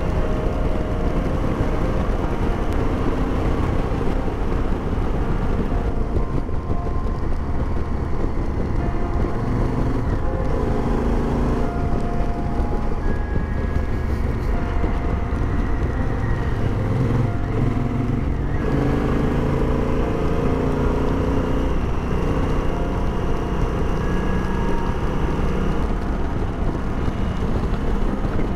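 Motorcycle running at speed on wet tarmac, recorded on the bike: steady engine, wind and road noise, with the engine note rising and falling several times through the bends.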